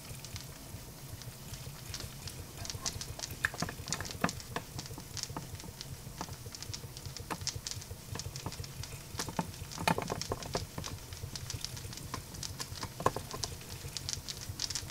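Small guillotine-frame model steam engine running on steam: a quiet, steady, fast running beat with irregular light ticks and crackling pops throughout, a few louder pops standing out.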